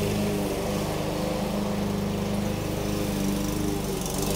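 Gasoline walk-behind lawn mower engine running steadily while mowing grass.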